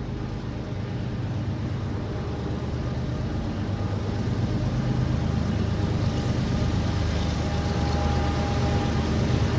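Steam train running and coming closer, a steady rumble that grows steadily louder.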